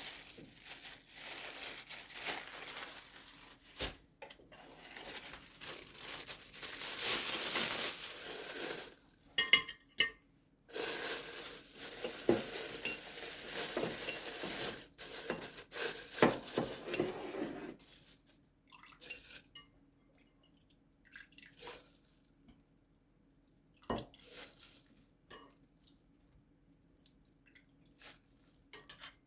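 Kitchen dishes and utensils clinking and knocking, with long stretches of a steady hissing noise through the first half. After that there are only a few scattered light clinks and knocks.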